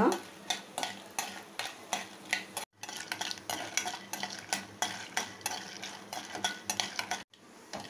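A spatula scrapes and taps against a kadai, stirring dried turkey berries (sundakkai vathal) as they fry in sesame oil, with a light sizzle. The sound cuts out briefly twice.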